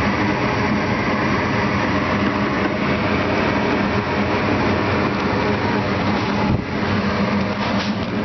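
Goodman 80% gas furnace running in heat mode: a loud, steady mechanical hum.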